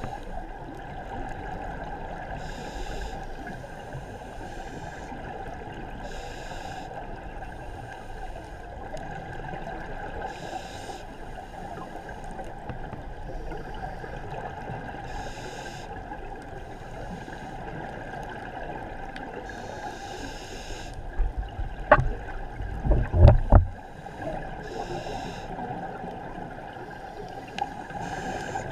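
Underwater scuba breathing through a regulator: a steady watery hiss with a wash of exhaled bubbles about every four seconds. About three-quarters through comes a louder stretch of low bubbling gurgles with a few sharp knocks.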